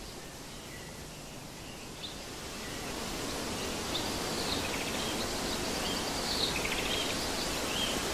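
Outdoor nature ambience: a steady hiss that swells gradually from a few seconds in, with faint bird chirps through the second half.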